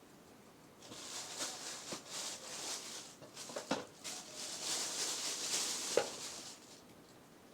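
Rustling and handling noise from the roller skates and their packaging being handled, with a few light knocks, the sharpest one near the end.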